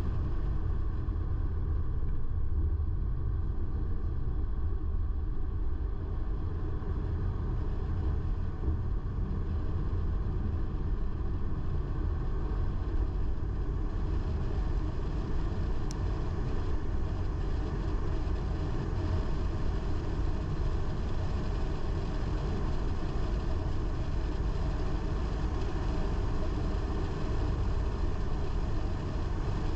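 Car driving steadily along a road: a constant low rumble of engine and tyre noise.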